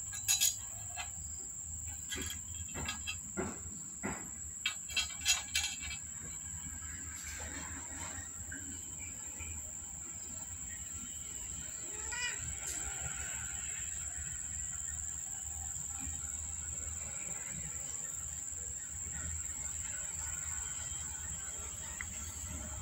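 Steady high-pitched insect chirring in the background, with a run of sharp clicks and taps during the first six seconds.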